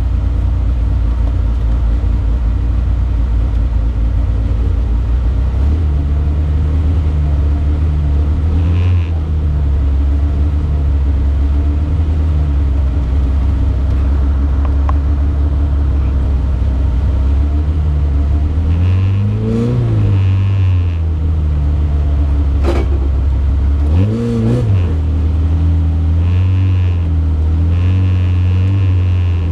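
Lada 21074's four-cylinder engine idling, heard from inside the cabin, with two short blips of the throttle about two-thirds of the way through and a sharp click between them.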